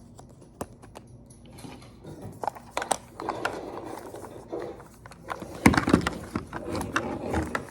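Hands opening small plastic packaging: scattered clicks and taps, then crinkling and rustling, with one louder knock a little past the middle.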